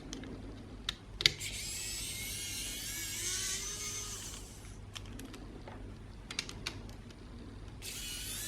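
Wowstick cordless precision electric screwdriver whining as it backs out the small screws in an Xbox One controller's back. It runs twice for a few seconds each time, with small clicks of plastic and screws in between.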